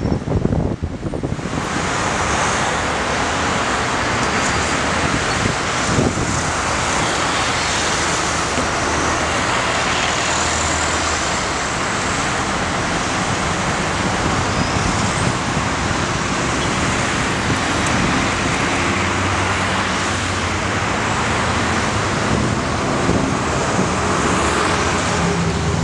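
Steady road traffic noise: a continuous wash of passing motor vehicles with engine hum underneath, setting in about a second and a half in.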